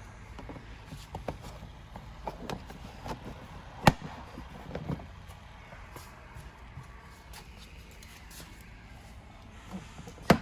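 A quad bike's seat being fitted and pressed shut, with light clicks and rattles of handling. There is a sharp knock about four seconds in and another near the end as the seat is pushed down into place.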